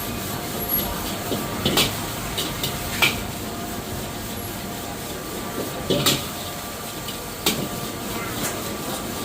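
Metal spatula clanking and scraping against a wok as fried rice is stir-fried: a few sharp clanks, a second or more apart, over a steady hiss.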